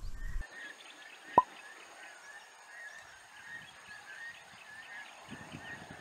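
Faint rural outdoor ambience of many small, quick chirping calls from wild creatures, over two faint steady high tones. One short, sharp pip stands out about a second and a half in, and a low rumble comes in near the end.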